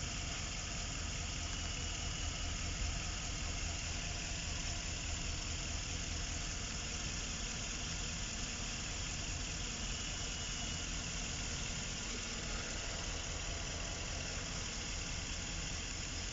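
GMC Savana van engine idling steadily and evenly, no longer misfiring now that the injector power wiring, which was starving the injectors of voltage, has been bypassed.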